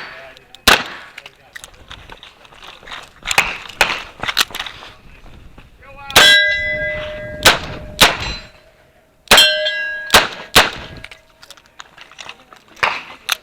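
Chiappa Charging Rhino revolver shots fired at irregular intervals, with steel targets clanging. Two hits, about six and nine seconds in, leave a long ringing tone.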